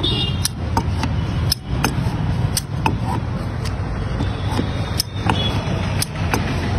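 Hand-operated sugarcane cutter clacking about twice a second as it chops peeled sugarcane into small pieces, over a steady low rumble.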